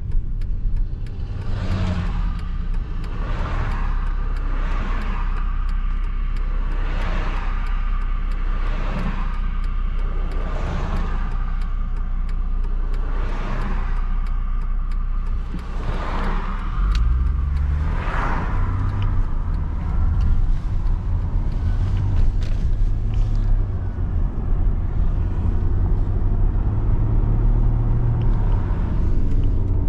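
Car on the road: a steady engine and tyre rumble with a string of whooshes through the first half. About sixteen seconds in, the engine note rises as it speeds up.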